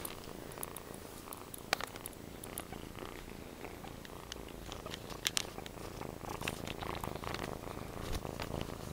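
A kitten purring steadily close to the microphone, with a few sharp clicks and rustles of handling over it.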